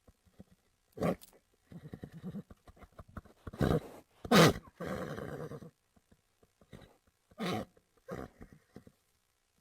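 Horse vocalizing in a string of short bursts. The loudest, about four and a half seconds in, falls in pitch and runs on into about a second of rapid pulsing; shorter bursts come before and after it.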